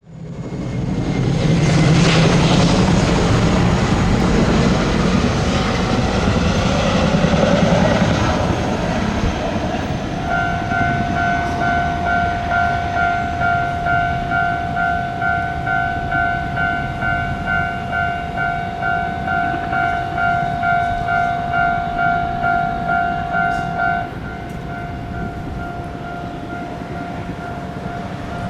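A train passes over the level crossing with a loud rumbling run for the first eight or nine seconds. Then the crossing's electronic warning alarm is heard alone, a steady pulsing two-tone beat, which drops to a quieter level about 24 seconds in.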